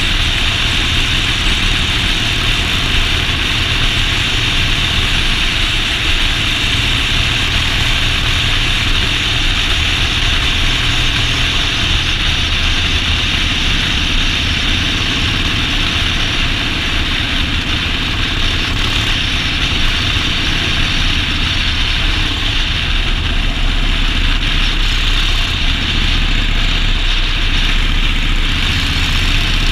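Motorcycle engine running steadily, with a steady rushing noise over it and no clear changes in engine speed.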